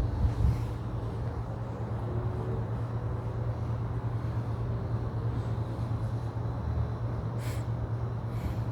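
Outdoor ambience: a steady low hum under a constant rumble, with a few faint tones drifting in and out.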